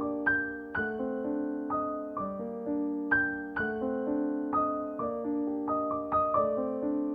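Background music: soft piano playing a gentle, slow melody, notes struck about twice a second and left to ring.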